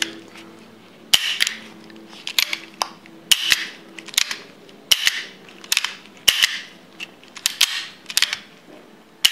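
The action of a Nagant M1895 revolver being worked unloaded: about a dozen sharp metallic clicks, often in pairs, as the hammer is cocked and snaps down in dry fire. The freshly reassembled action, with its polished parts and thinned mainspring, is working properly.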